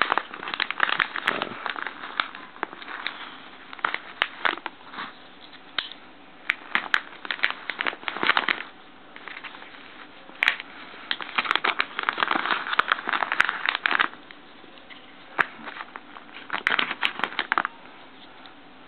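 Crinkling and rustling of a white paper packaging pouch being handled, in several bursts of crackly clicks with short pauses between. The handling goes quieter near the end.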